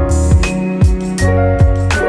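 Instrumental background music: sustained chords over a steady drum beat.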